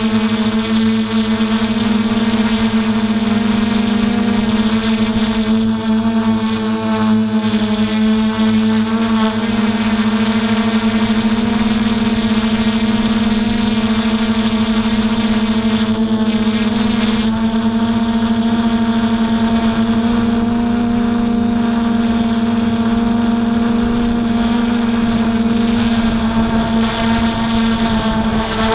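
DJI F450 Flamewheel quadcopter's electric motors and propellers whining steadily in flight, heard from the camera mounted on the aircraft, with a few small shifts in pitch as the throttle changes.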